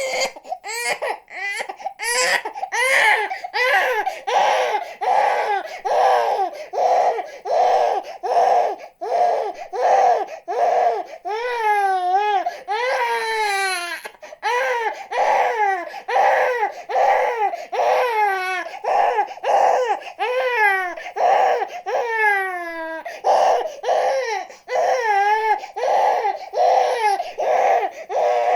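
An infant crying hard: short, rapid wails, roughly two a second, broken by a few longer wails that fall in pitch, about twelve seconds in and again near the end.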